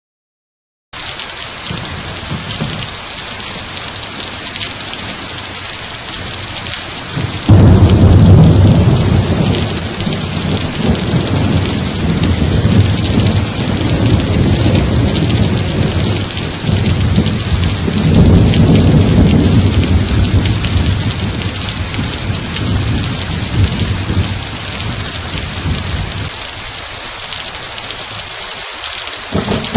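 Steady heavy rain, then a sudden loud clap of thunder about seven seconds in. The thunder rolls on in rumbling waves and dies away near the end.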